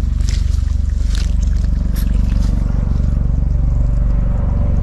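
A steady, low engine drone with a fast, even pulse, with a few sharp clicks in the first two seconds.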